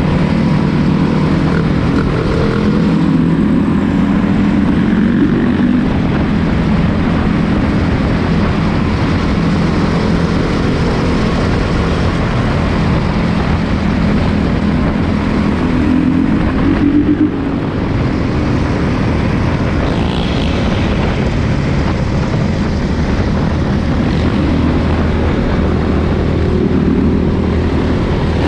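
Honda CRF450 dirt bike's single-cylinder four-stroke engine running while riding, its note rising and falling with the throttle; it eases off sharply for a moment about two-thirds of the way through.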